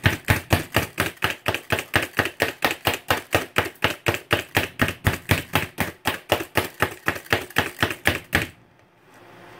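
Plunger-style hand food chopper mincing garlic: rapid, even clacks at about four to five a second as the plunger is pressed down and springs back. The clacking stops abruptly near the end.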